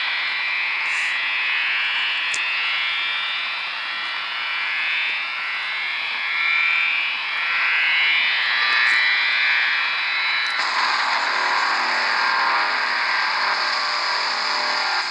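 Shortwave radio receiver demodulating a strange signal near 10312 kHz in lower sideband, heard as a repeating, stepped warbling tone pattern over static. About ten seconds in it changes abruptly to a denser, harsher buzzing noise.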